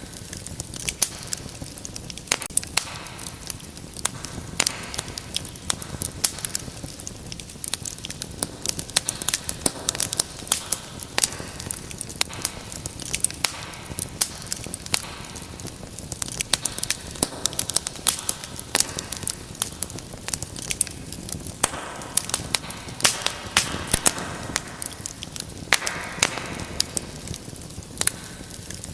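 Wood fire in a fireplace crackling and popping, with many irregular sharp pops over a soft steady hiss of the flames, and a few brief swells of flame noise near the end.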